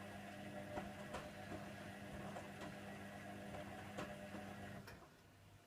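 Hoover Nextra washer dryer's motor turning the drum during a wash tumble: a steady low hum with faint scattered ticks, which stops about five seconds in.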